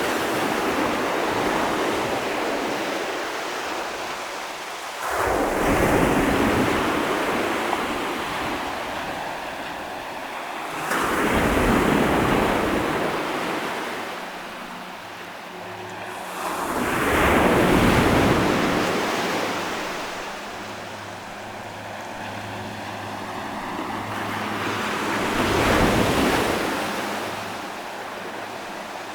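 Ocean waves breaking and washing onto the shore, swelling and fading about five times, one surge every five or six seconds.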